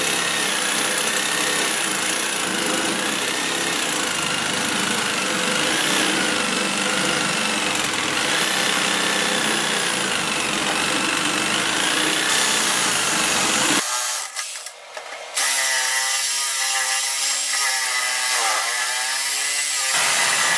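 Sawzall reciprocating saw cutting through metal on a go-kart frame, running steadily with a wavering pitch. It breaks off briefly about two-thirds of the way in, then runs again in a lower tone until near the end.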